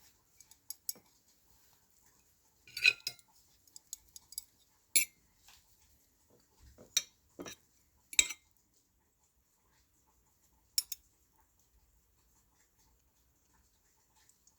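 Cutlery clinking and scraping against a dish while someone eats, in about ten short, scattered clinks with quiet gaps between them.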